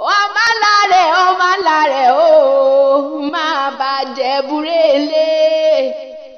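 A solo voice singing a Yoruba praise song in long, wavering, ornamented phrases. The singing fades briefly near the end.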